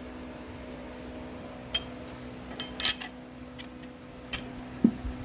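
Light metallic clinks and taps of tools and engine parts being handled during engine assembly, a few separate clinks with the loudest cluster about three seconds in and a duller knock near the end, over a steady low hum.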